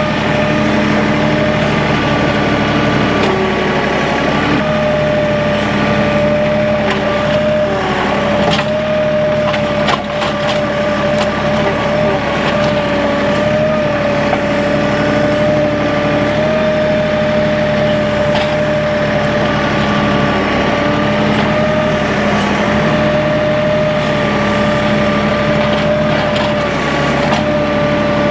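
Tractor engine running steadily under load, with a steady high whine over it and a few sharp knocks of logs being gripped and moved by the front grapple.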